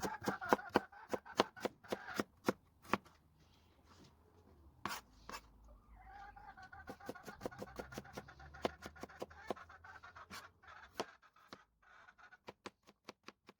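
Knife chopping vegetables on a cutting board: sharp, irregular chops about three or four a second, pausing and resuming. Hens cluck in the background at the start and again in the middle.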